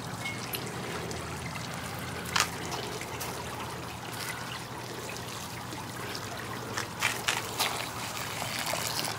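Water trickling steadily, with a few light clicks about two seconds in and again near the end.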